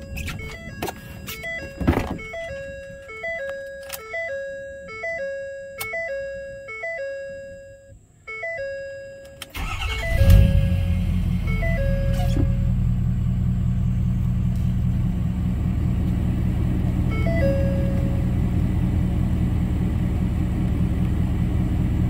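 Truck dashboard warning chime repeating at an even pace, then the 2012 Ford F250's 6.7 L Power Stroke V8 turbodiesel cranks briefly and starts about ten seconds in, settling into a steady idle. This is the first start with the new cold-side intercooler tube fitted.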